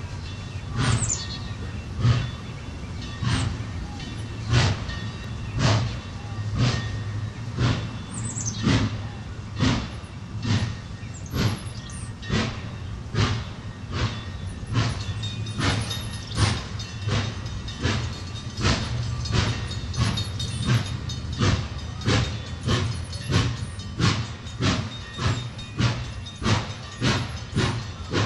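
Frisco 1522, a 4-8-2 steam locomotive, chuffing as it gets under way: the exhaust beats come faster and faster, from about one a second to about two a second.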